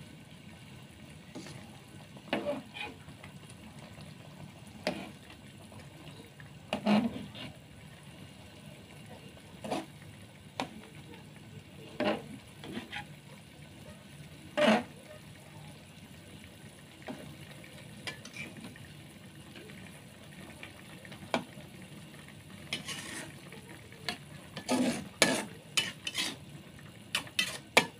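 Metal spatula scraping and clinking against an aluminium wok while fish soup is stirred and the fish pieces turned: irregular scrapes every second or two, bunching up near the end, over the steady low hiss of the simmering broth.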